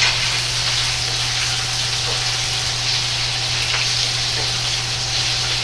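Shrimp, taro slices and bok choy stems sizzling steadily in hot oil in a wok as they are oil-blanched, with a steady low hum underneath.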